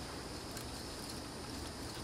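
Steady outdoor ambience: a high, even insect chorus over a low rumble.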